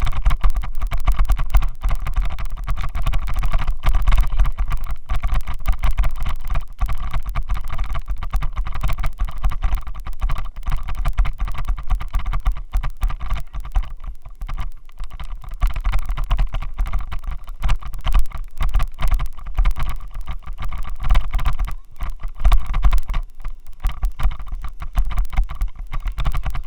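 Rapid, continuous rattling and buzzing over a strong low rumble, picked up by a Xiaomi Yi action camera's microphone as its loose helmet mount vibrates. The noise comes from the faulty mount shaking the camera.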